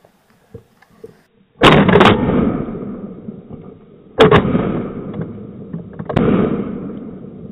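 Three shotgun shots fired at a flying partridge, about two and a half seconds and then two seconds apart, each echoing and fading slowly. The bird keeps flying, so the shots miss.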